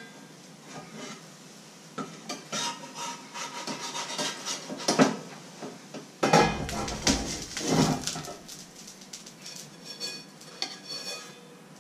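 A pan lid, a fork and a frying pan clinking, clattering and scraping against each other as pancakes are cooked and handled. It is a run of irregular knocks and scrapes that starts about two seconds in and is loudest in the middle.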